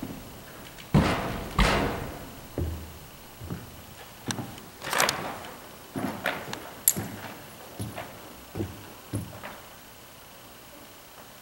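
Ice-tool picks and crampon points knocking and scraping against the panels and plastic holds of a dry-tooling wall as a climber moves up: two hard knocks about a second and a second and a half in, a scrape around the middle, then a run of lighter knocks that stops shortly before the end.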